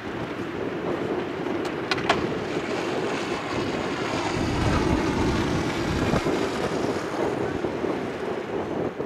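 Wind blowing across the microphone, a steady rushing noise, with two faint clicks about two seconds in.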